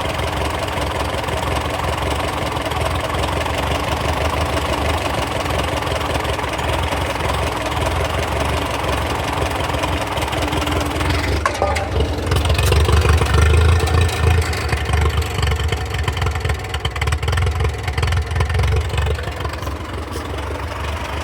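Ferguson TO35 tractor engine idling steadily, free of the loud tick it had. It runs a little harder and louder for a few seconds around the middle, then settles back to idle.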